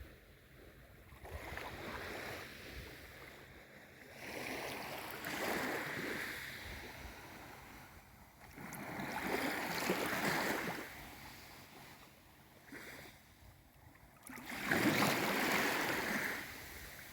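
Small waves of a calm sea washing in, about four swells of water noise a few seconds apart, each rising and falling away over a couple of seconds.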